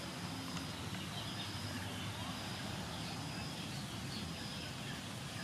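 Birds chirping over steady outdoor background noise, with a short high note repeating about once a second.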